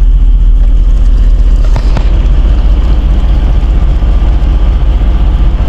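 Vehicle on the move: a steady, loud, low rumble of engine and road noise.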